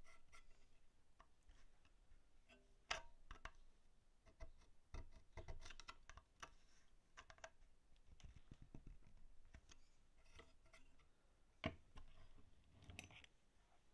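Faint, scattered clicks and light metal taps of a small pointed hand tool working at a pin in a cast scale part held in a bench vise, with the sharpest taps about 3 seconds in and near the end.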